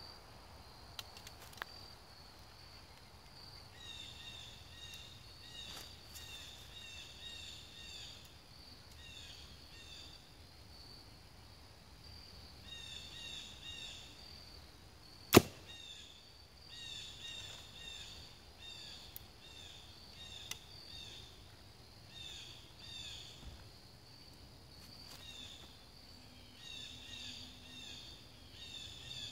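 A compound bow fitted with a prototype titanium-alloy stabilizer is shot once, about halfway through: a single sharp snap of the string on release, with a very short ring after it. High chirps repeat in short groups in the background.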